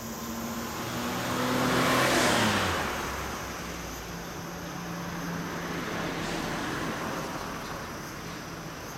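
A road vehicle driving past. Its engine and tyre noise swell to a peak about two seconds in, and the engine's pitch drops as it goes by. A fainter vehicle passes around six to seven seconds in.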